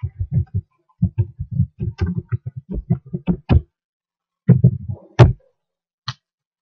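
Computer keyboard being typed on: a quick run of keystrokes, a short pause, a second brief burst, then one last keystroke near the end.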